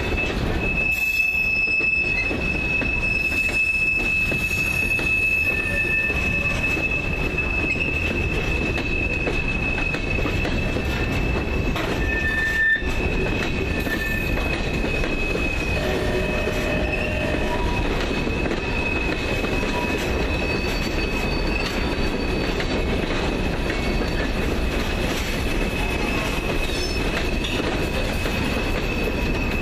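CSX freight train of gondola cars rolling past on curving track: a steady rumble of steel wheels on rail, with a steady high-pitched wheel squeal starting about a second in. One louder clank about halfway through.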